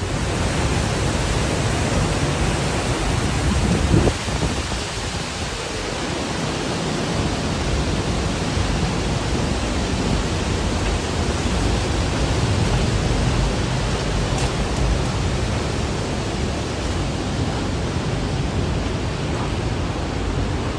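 Steady rushing of a mountain river flowing over rocks in a gorge, an even hiss and roar, with a brief bump about four seconds in.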